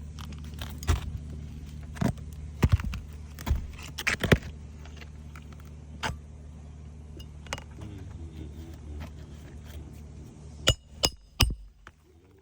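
Roofing work on asphalt shingles: scattered sharp knocks and metal clinks over a steady low hum, which stops about ten and a half seconds in, followed by a quick run of louder knocks.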